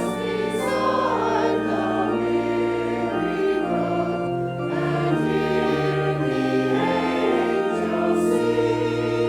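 Choir singing with organ accompaniment: sustained organ chords over a held bass line beneath the voices.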